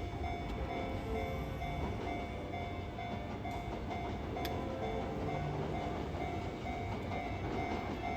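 Japanese railway level crossing warning bell ringing in a steady, even repeating beat while a Kintetsu train runs past with a continuous low rumble.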